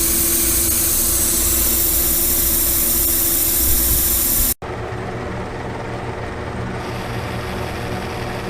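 Metal lathe running and cutting a 1018 steel die, a loud steady hiss over a steady hum. About four and a half seconds in, the sound cuts off abruptly and resumes as a quieter lathe run with much less hiss.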